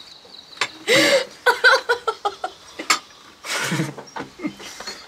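People laughing: a loud burst about a second in breaks into rapid ha-ha pulses, then another burst of laughter near four seconds in.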